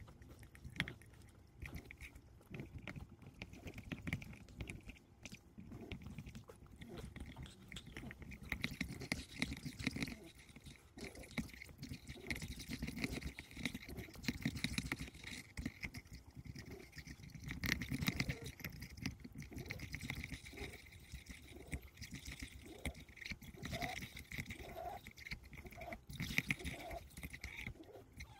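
Cane Corso puppy gnawing on a toy hammer: irregular teeth scraping and clicking with wet mouth sounds, going on and off throughout.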